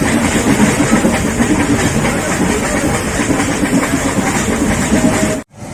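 Nilgiri Mountain Railway toy train running, heard from on board: a loud rumble and rattle of the coaches with fast clicking and a hiss. It cuts off abruptly near the end, giving way to a quieter steady noise.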